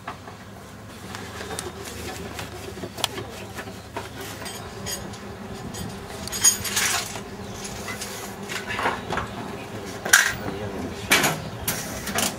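Metal tools and parts clinking and clattering as they are handled, with a few sharper, louder knocks in the second half.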